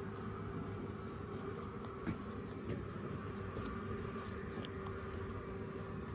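Faint irregular crunching clicks of a wild rabbit chewing food, over a steady low background hum.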